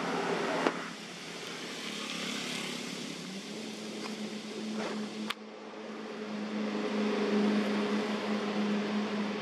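A motor engine running steadily: a low hum that steps up slightly in pitch about three seconds in, over a rushing outdoor background, with a sharp click about five seconds in.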